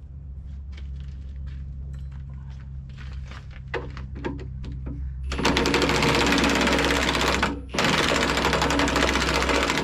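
Impact wrench hammering on a bolt in two long bursts with a short pause between, starting about halfway in, after scattered clicks and taps of tools being fitted. The owner believes the bolt is bent a little.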